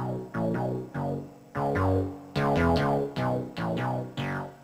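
MacBeth M5/M5N analog modular synthesizer playing a patch: a sequence of short notes, about two a second in an uneven rhythm, each starting sharply and bright, then darkening as it decays, with a low bass note under some of them. It is heard through a video camera's microphone.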